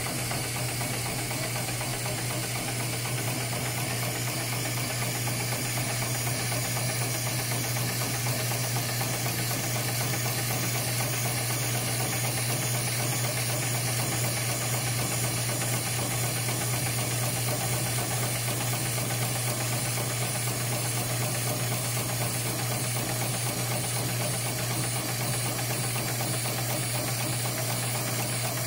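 HighTex 71008R CNC bar tacking machine running steadily as it sews a stitched eye through braided rope: a constant mechanical hum with an even hiss over it.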